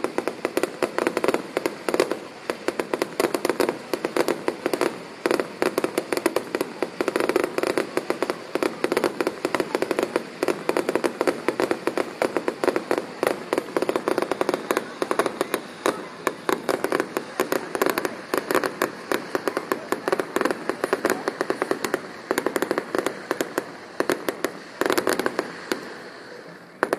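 Fireworks display: a dense, rapid run of bangs and crackling from bursting shells, with a final cluster near the end before it dies away.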